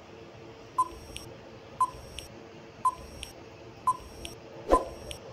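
Countdown timer sound effect ticking: five short beeps about a second apart, each followed by a fainter click. The fifth, near the end, is the loudest, with a low thud under it.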